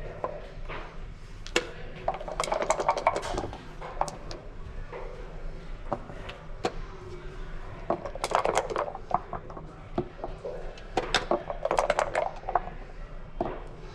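Backgammon dice rattling in a dice cup and tumbling onto the board in three bursts of rapid clicking, with single clacks of plastic checkers being set down and the game clock's button being pressed between them.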